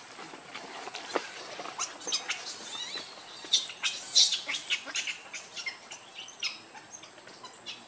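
Baby macaque crying in a rapid string of short, high-pitched squeals and chirps, loudest about four seconds in. It is the pitiful cry of an infant begging its mother to let it nurse.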